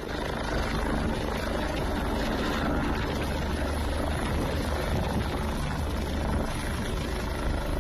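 Helicopter running steadily as it lands, its rotor giving an even low beat under a constant rush of engine and blade noise.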